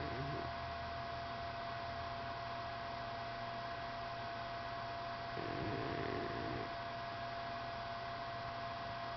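A sleeping cat snoring faintly: one drawn-out snore about five and a half seconds in, lasting just over a second, and a shorter, softer one right at the start, over a steady electrical hum and hiss.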